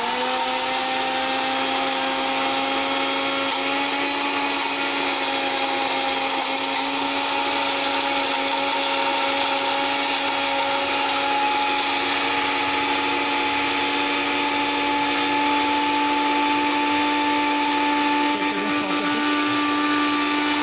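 Cambridge CG 5059 electric spice grinder's motor and stainless-steel blade running steadily, grinding whole spices at speed setting 2. The pitch steps up slightly right at the start as the speed is raised, then holds almost level.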